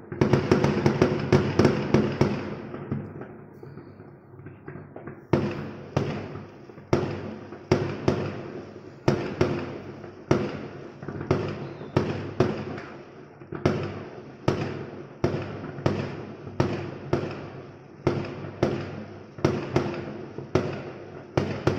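Fireworks going off: a dense volley of rapid bangs and crackle for the first couple of seconds, then, after a short lull, a steady series of single sharp bangs about every two-thirds of a second, each trailing off.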